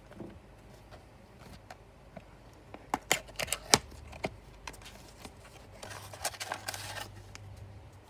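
A cardboard COVID-19 test kit box being opened by hand: a quick run of sharp clicks and snaps about three seconds in, then rustling and crinkling of the packets being taken out near the end.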